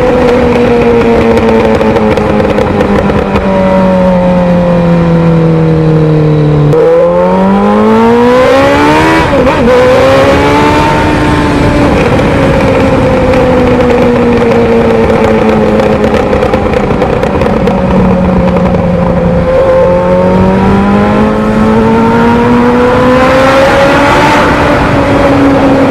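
Motorcycle engine and exhaust under way, the note slowly sinking as the rider eases off, then climbing steeply as the throttle opens about seven seconds in. It eases off again and sinks slowly, then climbs once more a little past twenty seconds.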